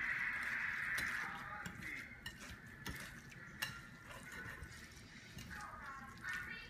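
Wire whisk stirring a thick mashed-cauliflower mixture in a glass bowl: a steady swishing for the first second or so, then softer stirring with a few sharp clicks of the wires against the glass.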